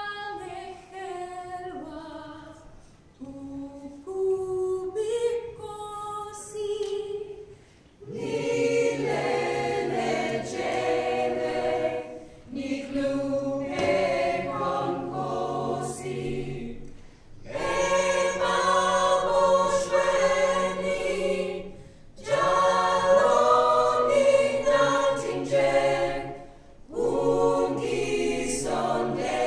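Mixed a cappella choir singing a Southern African song. A few higher voices open, and the full choir with low voices joins about eight seconds in, singing in phrases with short breaks between them.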